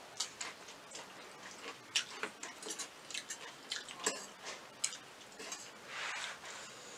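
Close-up eating sounds: chewing and biting noodles and samosa, heard as irregular sharp clicks and smacks, with forks working in steel plates of chow mein. There is a brief louder noisy swell a little before the end.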